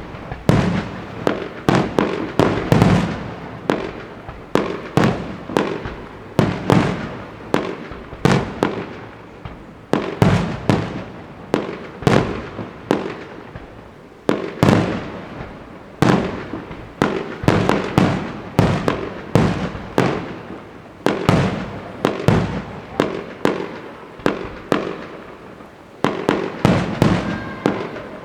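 Fireworks display: a rapid series of aerial shell bursts, several bangs every second or two, each followed by a rumbling echo that fades.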